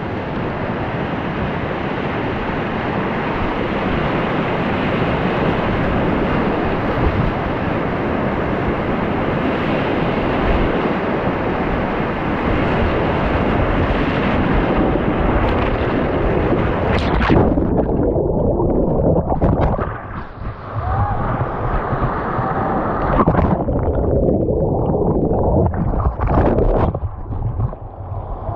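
Whitewater rapids rushing and splashing loudly around an open canoe. About 17 seconds in the sound turns muffled and dull, with sudden splashes breaking through, as the canoe capsizes and the microphone goes under and comes back up during the paddler's rolls.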